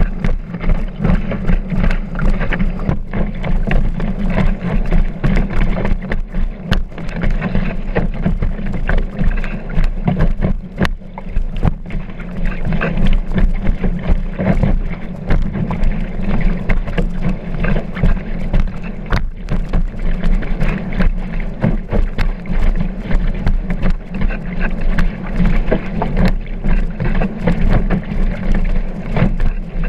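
Kiteboard planing over choppy water, heard through a camera mounted on the board: a steady rush of water and a heavy low rumble, broken by frequent sharp slaps and knocks as the board hits the chop.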